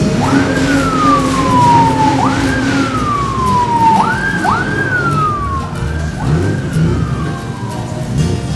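A siren whooping: about five sweeps, each shooting up in pitch and then sliding slowly back down, the later ones overlapping, over the low running of vehicle engines.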